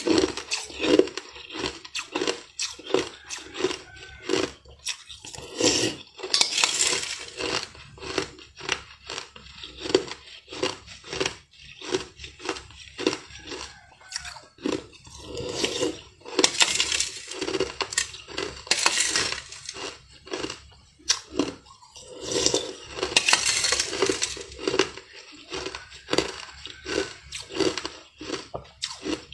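Chunks of ice being bitten and chewed close to the microphone, a steady crunching chew about two times a second, with louder crunching bites every few seconds.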